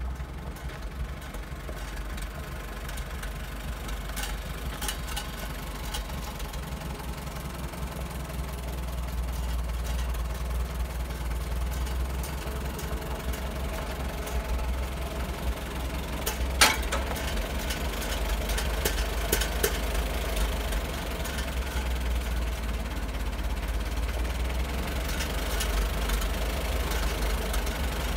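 Old tractor engine running steadily at low speed, growing a little louder as the tractor comes closer, with a single sharp clank about two-thirds of the way through.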